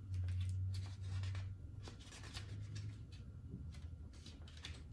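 Soft paper rustling and light clicks of a printed instruction booklet being leafed through, over a low hum that fades out about a second and a half in.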